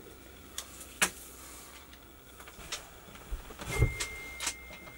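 Handling noise of a tape measure being used in a wooden cabinet space: scattered light clicks and knocks, with a dull bump just before four seconds in. A thin, steady high tone starts shortly before the bump and carries on to the end.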